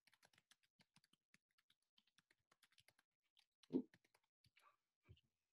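Faint, quick typing on a computer keyboard, with one louder knock about two-thirds of the way through.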